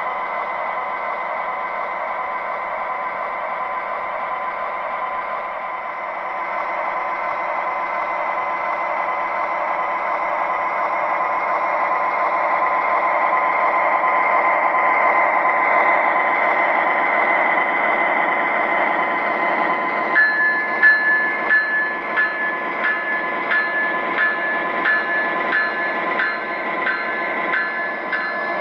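Diesel engine sound effects from an MTH O-gauge GE ES44AC model locomotive, played through its small onboard speaker. The engine sound swells louder through the middle, like a rev-up. About two-thirds of the way in, a regular clicking starts, about three clicks every two seconds.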